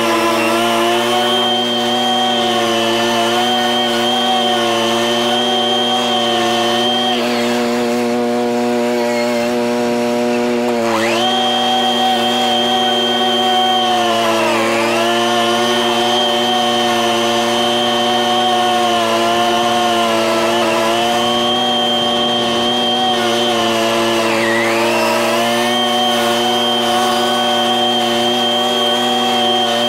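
Small two-stroke engine of a handheld gas lawn tool running near full throttle with a steady high whine. It drops back toward idle about seven seconds in, revs up again around eleven seconds, and dips briefly twice later on.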